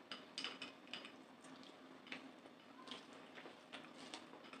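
Faint, irregular wet clicks and squishes of eating by hand: fingers mixing and squeezing rice with curry on a banana leaf, along with mouth sounds of chewing.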